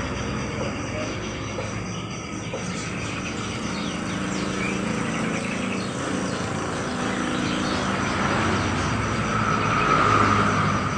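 Steady traffic noise with many small caged birds chirping and twittering over it. The traffic swells briefly near the end.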